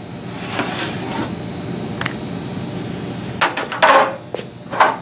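Things being moved about and set down on a wooden tabletop: a brief rustle, a single click, then a run of sharp knocks and clatters, the loudest about four seconds in.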